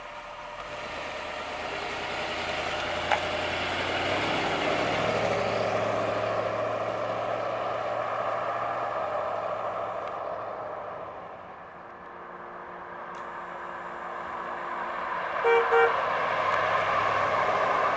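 1993 Chevrolet Corvette's V8 running as the car drives off and comes back past, its note swelling and fading with distance. Two short car-horn toots sound near the end as the car passes.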